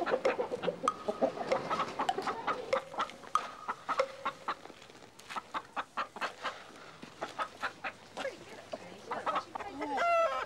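A flock of hens clucking, with many short clicks between the clucks, and one louder, drawn-out call near the end.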